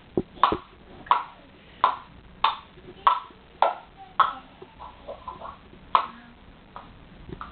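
A hard toy being struck over and over: sharp knocks, each with a short ring, about one every two-thirds of a second, then a few softer taps and one last knock about six seconds in.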